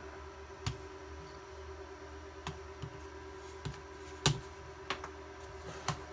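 Scattered light clicks and taps of hands and a small screwdriver working the plastic case of a palmtop computer as it is screwed back together, about eight in all, the loudest a little after four seconds in.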